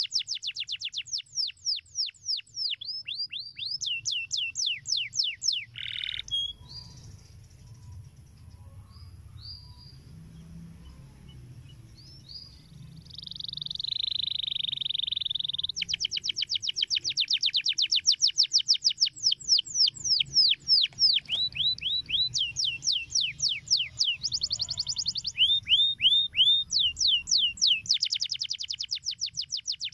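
Canary singing: long rolling trills of rapid, quickly falling whistled notes. About six seconds in the song breaks off into a quieter spell of a few short notes and one held note, then the rapid trills resume at about sixteen seconds and run on.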